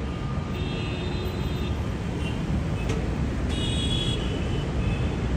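Jet engines of a FedEx Boeing 777 freighter: a steady low rumble, slowly growing louder, with two short runs of faint high chirps and a single click about halfway.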